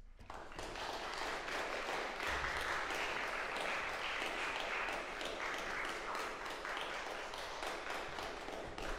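Audience applause, starting right after the final piano chord dies away and building quickly within the first second into steady, dense clapping.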